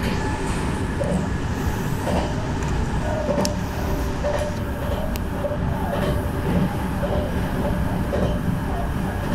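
Electric train running along the line, heard from inside the front car: a steady rumble of wheels and running gear with a faint whine, and two short clicks partway through.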